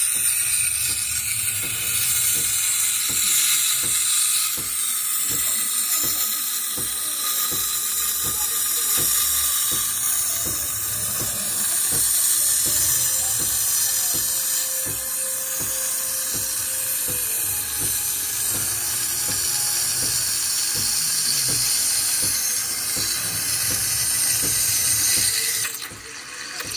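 Steam wand of a Dualit Espressivo espresso machine hissing steadily into a stainless steel jug of milk, heating and frothing it, with rapid small irregular pops underneath. The steam cuts off near the end.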